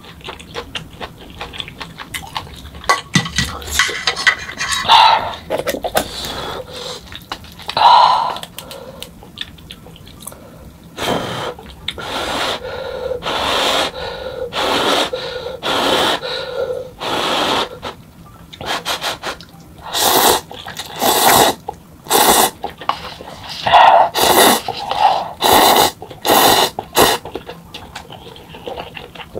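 Close-miked eating of hot instant cup noodles: first small chewing and chopstick clicks, then from about a third of the way in a series of loud, breathy slurps as noodles are drawn into the mouth.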